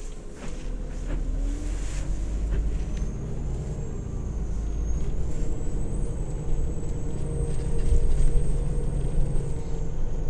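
Irisbus Crossway coach's diesel engine running, heard inside the passenger cabin as a steady low rumble. A thin high whine comes in about three seconds in, rises in pitch, holds, and falls off near the end, with a few knocks near the start.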